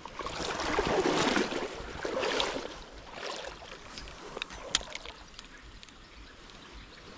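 Shallow river water flowing steadily, with two louder swells of rushing noise in the first three seconds and a single sharp click about five seconds in.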